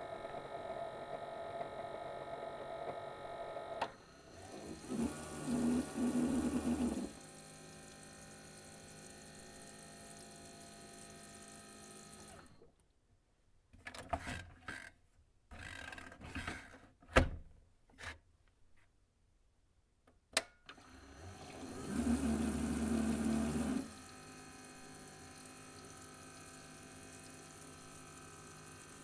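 Keurig coffee maker brewing: its water pump runs with a steady hum, broken twice by louder gurgling, spurting surges of water. In the middle the hum stops and there are a few seconds of short sputters and sharp clicks before the pump surges again.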